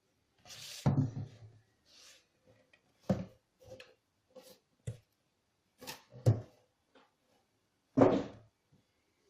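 A box and its packaging being handled by hand: a string of separate thumps, knocks and rustles, with a sharp click near the middle. The loudest thumps come about a second in and near the end.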